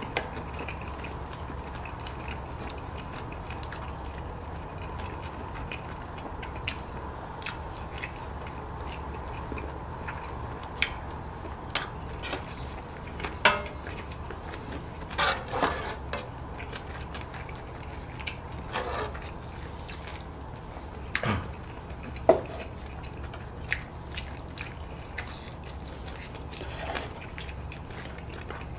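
People eating ramyeon stew: quiet chewing with scattered short clicks of spoons and wet mouth sounds, over a steady low hum.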